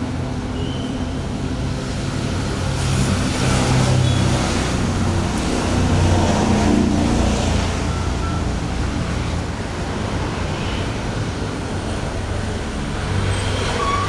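Road traffic running past, swelling louder twice as vehicles go by.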